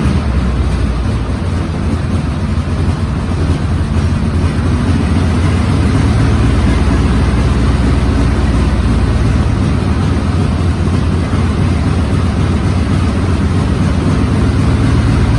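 The newly installed engine of a 1942 M3A1 Stuart light tank running steadily with a low, even rumble.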